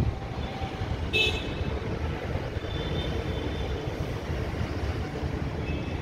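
Steady road traffic noise with a short vehicle horn toot about a second in, and a fainter, higher horn about three seconds in.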